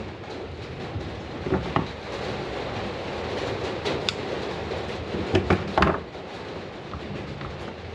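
A few short knocks and clatters of objects being handled and set down, over a steady background rumble, with a quick cluster of three near the end.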